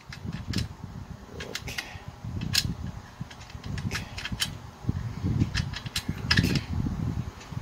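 Hex key and spanner clicking against the valve-clearance adjusting bolt and locknut on a four-stroke brush cutter's cylinder head as the locknut is tightened to lock the clearance just set. The sound is a scatter of about a dozen small sharp clicks over a low, uneven rumble.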